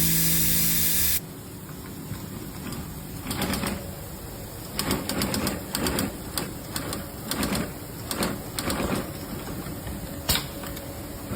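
Background music cuts off about a second in. Then a 28-inch postbed sewing machine runs in several short stitching bursts, followed by a single sharp click near the end.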